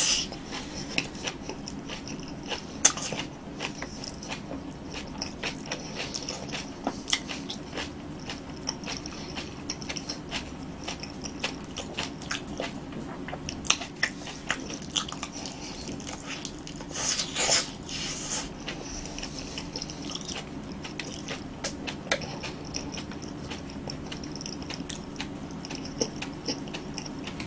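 Close-miked mouth sounds of a person eating roasted sweet potato: a bite into the soft flesh, then chewing with many small clicks from the mouth. Two short, louder noisy bursts come about two-thirds of the way through.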